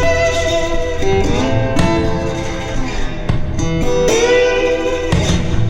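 Intro music led by guitar, loud and continuous.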